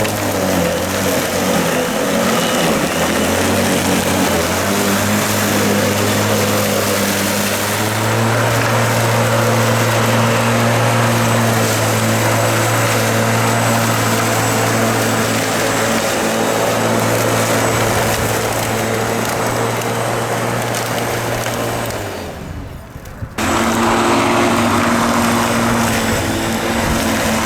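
Greenworks 14-inch corded electric lawn mower with a 9-amp motor running while cutting grass, a steady motor hum with blade noise. The sound drops away briefly about 22 seconds in and then comes straight back.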